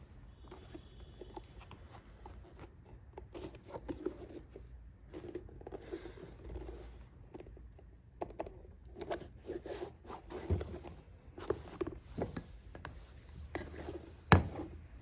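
Hand work on a leather boot: many short, irregular scraping and rubbing strokes, with a few knocks and one sharp, loud knock near the end.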